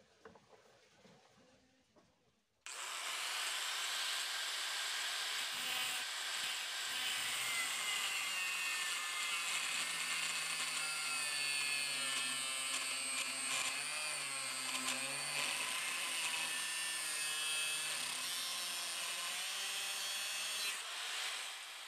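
Handheld angle grinder with an abrasive disc cutting into a steel knife blank clamped in a vise. It comes in suddenly about three seconds in and runs steadily with a high whine that wavers a little as the disc bites.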